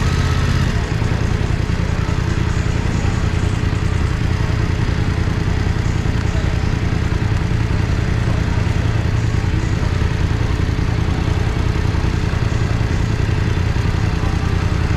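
BMW F900R's 895 cc parallel-twin engine running through its exhaust at low revs, a steady low rumble, turning rougher about a second in.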